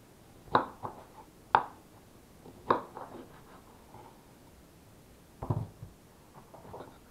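Kitchen knife cutting through an orange and striking a wooden cutting board: three sharp knocks in the first three seconds, then a duller thump about five and a half seconds in.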